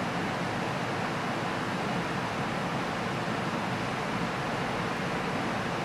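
Steady, even rushing noise with no pitch and no separate events.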